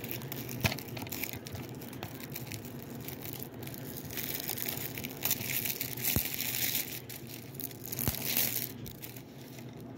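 Plastic shrink wrap crinkling and tearing as it is pulled off a DVD case by hand, in irregular rustling spurts with sharper crackles.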